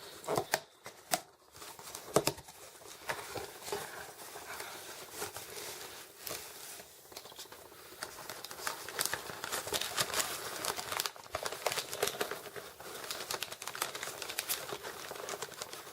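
Packaging being unwrapped and pulled open by hand: irregular crinkling and tearing, with many small clicks and rustles.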